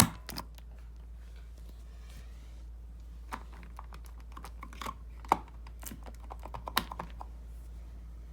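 Irregular clicks and light knocks from a homemade fire alarm pull station being handled, over a steady low hum.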